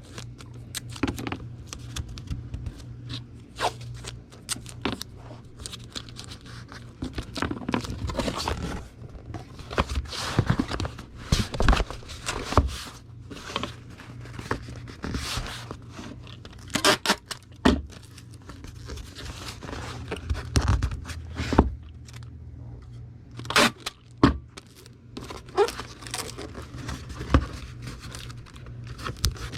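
Irregular rustling, scraping and knocking of packing materials being handled: a book in a plastic comic-book bag being fitted into a cardboard Gemini comic mailer. A steady low hum runs underneath.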